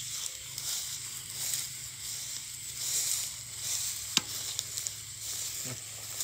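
Rustling in dry grass and stubble, in uneven swells, over a steady high insect drone; a single sharp click comes about four seconds in.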